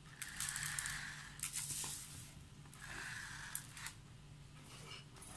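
Washed rice grains rustling and scraping as they are scooped and poured into a metal lontong mould tube, coming in a few short bursts.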